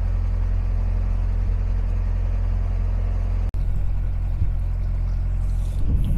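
Narrowboat's diesel engine running steadily at cruising speed, a constant low drone. The sound drops out for an instant about halfway through.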